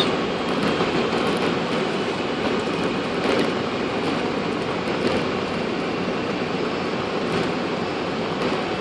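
Steady rumble and rushing noise in the cockpit of a Boeing 747-400 rolling out on the runway after touchdown, slowing under braking below 70 knots.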